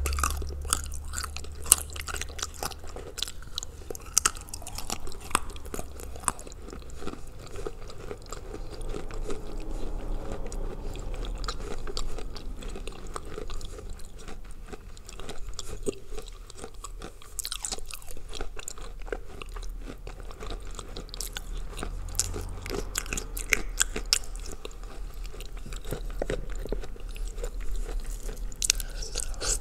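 Close chewing and crunching of soaked Ural clay coated in blue Uzbek clay, bitten off in pieces: repeated sharp cracks and crunches between wetter, softer chewing.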